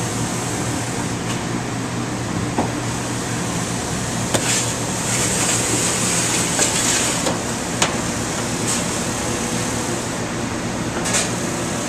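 Steady hum of commercial kitchen ventilation fans, with a few light clicks and knocks scattered through it.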